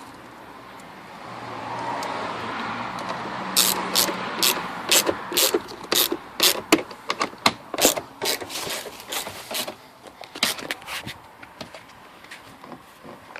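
Irregular run of sharp clicks and scrapes, about two a second, from the plastic side-mirror assembly and its wiring being handled and fed through the door, after a swell of steady noise in the first few seconds.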